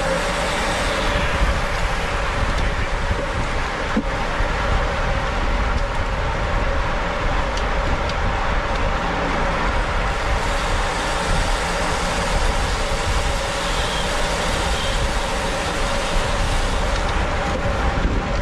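Road bicycle riding at race speed, heard from an onboard camera: steady wind rumble on the microphone over tyre and drivetrain noise, with a faint steady hum.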